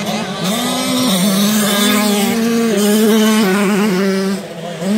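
Motocross motorcycle engine running hard on the track, its pitch jumping up and down as the rider works the throttle and shifts gear. It eases off briefly about four seconds in, then picks up again near the end.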